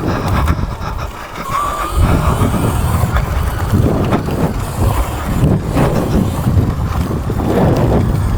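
Sur Ron electric dirt bike ridden over a rough trail: wind buffeting the microphone and the bike knocking and rattling over bumps, with a faint motor whine rising and falling in the first couple of seconds.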